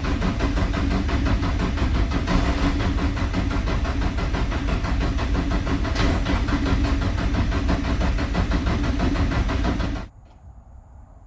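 Nissan SR20DET four-cylinder turbo engine being cranked on the starter without firing, a steady rapid churning held for about ten seconds to build oil pressure before a first start after sitting a week. It stops abruptly near the end.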